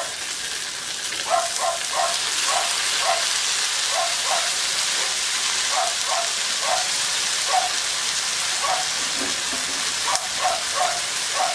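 Sliced carrots, peppers and onions sizzling steadily in oil in a wok. Short pitched calls repeat over the top, often in quick pairs, about every half second to second.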